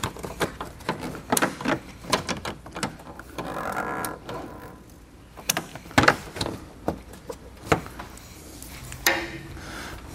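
Irregular clicks and knocks of a BMW F10 M5's plastic front bumper cover being handled and pushed onto its locating pins, with a brief scrape about four seconds in.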